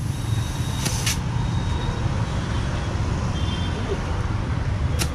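Steady low rumble of motor vehicles running, with a couple of short sharp clicks, one about a second in and one near the end.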